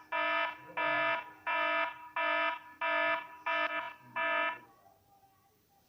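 Electronic alarm sound effect: seven buzzy beeps at an even pace, about two-thirds of a second apart, stopping about four and a half seconds in.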